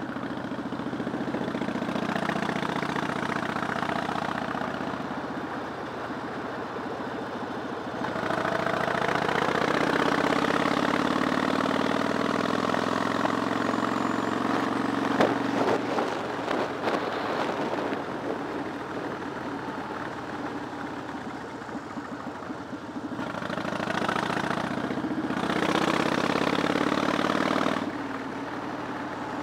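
Harley-Davidson motorcycle's V-twin engine running on a ride, heard from the bike. The engine note swells and eases off several times with the throttle, and drops off suddenly near the end.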